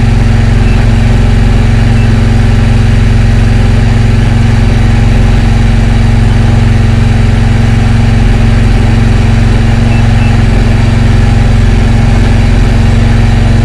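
A fishing boat's engine running steadily at an unchanging speed, loud and close.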